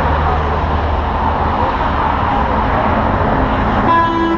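Steady rumble of road traffic and vehicle engines, with a short pitched beep about four seconds in.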